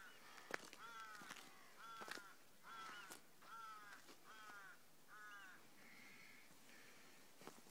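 A crow cawing, faint: a run of about seven short harsh caws, each dropping slightly in pitch, spaced under a second apart and stopping about five and a half seconds in.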